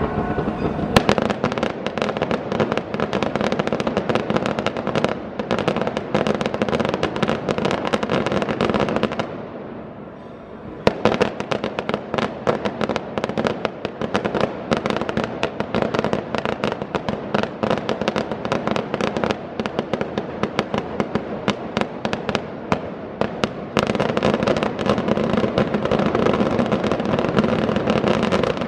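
Daytime aerial fireworks crackling and popping in a dense, rapid barrage. It eases briefly about nine seconds in, then starts again with a sharp loud bang about eleven seconds in.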